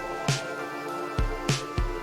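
Background music with a steady beat: held notes over low drum thumps and sharp bright hits.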